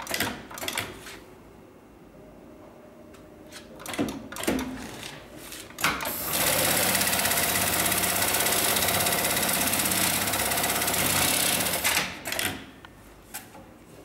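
Hightex MLK500-2516 automatic pattern sewing machine running steadily for about six seconds in the middle, stitching a box-X pattern through seat belt webbing. Short knocks and clicks come before and after the run.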